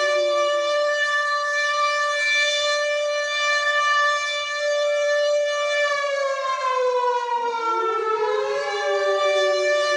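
WW2-style air raid siren wailing, with several sirens sounding together. The tones hold steady, then one slides down in pitch from about six seconds in while another swoops up again near the end.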